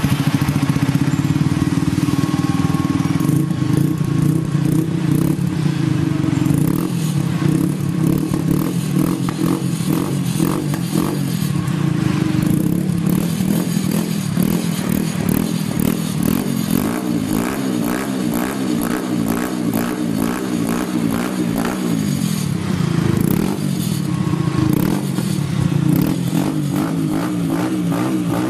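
Dafra Apache 150's single-cylinder engine running through a Roncar Coyote TRS oval exhaust with catalytic converter. It idles steadily, and its pitch wavers in the second half.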